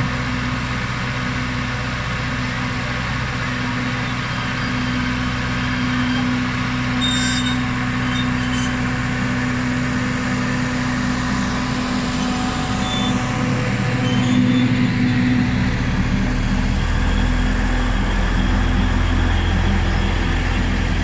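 Alishan Forest Railway DL-50 diesel locomotive running at close range with a steady engine drone; about two-thirds of the way in its note deepens into a heavier, louder rumble as the engine works harder for the train's departure.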